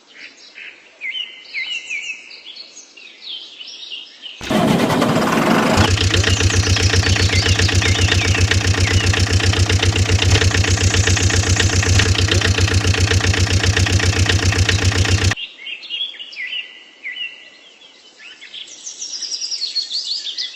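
Birds chirping, then about four seconds in an engine starts and runs steadily with a fast, even pulsing for about ten seconds before cutting off suddenly, and the birdsong returns.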